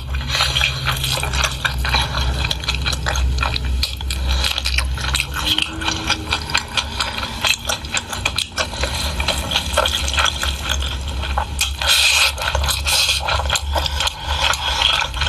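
Close-miked mukbang eating sounds: wet chewing and lip-smacking on pork, a dense run of small clicks and crackles over a steady low hum.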